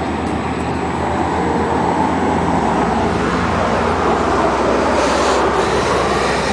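Steady rushing outdoor noise with a low rumble throughout, of the kind made by road traffic or wind, with no distinct events.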